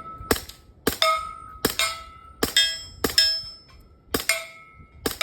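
Suppressed 9mm AR carbine firing subsonic 165-grain rounds at a steady pace, about seven shots, each sharp crack followed by a ringing metallic clang.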